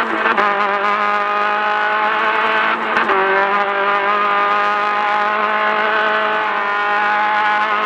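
Class 10 off-road race car's engine running at steady high revs, with a short break about three seconds in before it settles again.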